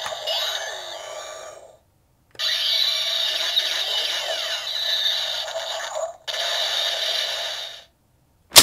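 DX Buggle Driver toy in its Gashacon Bugvisor gun form playing its electronic sound effects through its small built-in speaker: a short beam-gun shot effect with sweeping tones lasting under two seconds, then after a brief pause a longer special-attack effect of about five seconds, broken by a short dropout. A sharp click at the very end.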